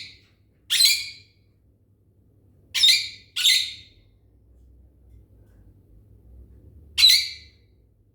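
A bird squawking: five short harsh calls at irregular intervals, two close together about three seconds in and a last one near the end.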